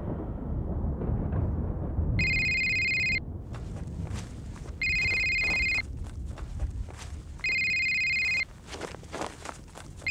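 Smartphone ringtone ringing on and off: three electronic rings about a second long, each a cluster of steady high tones, spaced roughly two and a half seconds apart, with a fourth beginning at the end. A low rumbling drone runs underneath.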